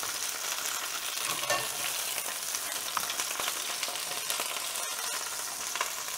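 Chicken pieces frying in hot oil in a stainless steel pan, a steady sizzle, with a few light clicks as metal tongs lift the seared pieces out of the pan.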